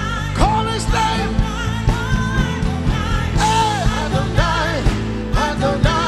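Live worship music: voices singing a slow melody over a full band with a steady drum beat.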